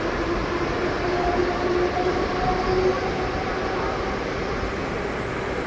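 Mumbai suburban EMU local train pulling out along the platform: a continuous rumble of the coaches and wheels with a faint motor whine that rises slightly, as the last coach goes by.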